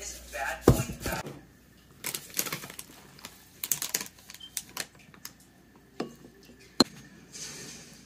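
Plastic spatula clicking, tapping and scraping against a glass mixing bowl as ceviche is stirred and scooped, in a string of short irregular clicks with a sharp knock under a second in.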